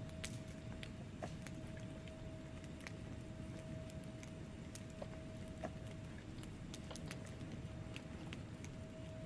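Wood fire burning in a fireplace, crackling with irregular small sharp pops over a low steady rumble of flame.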